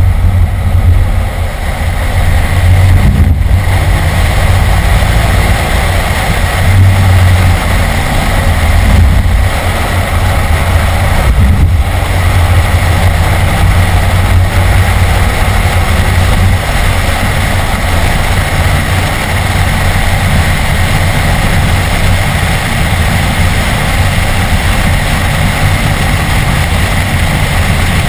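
In-cabin sound of a BMW E46 M3's straight-six engine running hard at track speed, with road and wind noise. Loud and fairly steady, with a few brief breaks in the sound.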